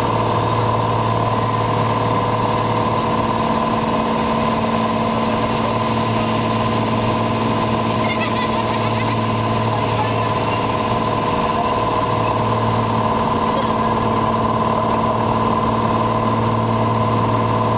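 Piper Cherokee's engine and propeller droning steadily, heard inside the cockpit in flight. A faint high whine swells in the middle and fades again.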